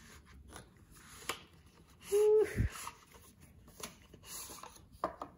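A pen box being slid out of its cardboard sleeve: faint rustling and scraping of card, with a few light clicks. About two seconds in comes a short, louder pitched sound that drops sharply in pitch.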